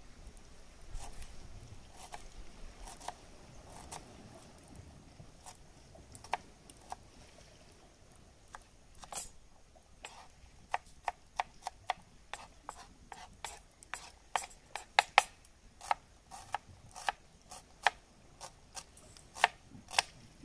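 Knife chopping an onion: sharp, irregular knocks of the blade on the cutting surface. They begin about six seconds in and come faster in the second half, roughly two or three a second.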